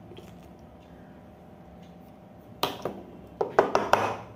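Sharp clicks and knocks of small plastic and metal pump parts being handled and set down on a wooden table: a couple of single clicks about two and a half seconds in, then a quick cluster of knocks near the end.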